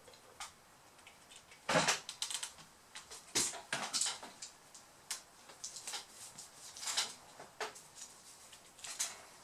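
Scattered sharp clicks and clatters of small tools being handled: a plastic screwdriver bit case picked up and its metal bits rattling, about a dozen irregular knocks with short quiet gaps between.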